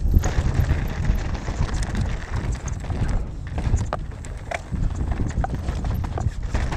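Mountain bike riding down a dirt trail: tyres rumbling over the ground, with a run of sharp knocks and rattles from the bike as it goes over bumps.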